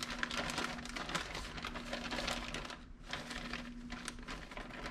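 Plastic zip-top bag of flour crinkling and rustling as soft shell crabs are put in and handled, with a short lull about three seconds in.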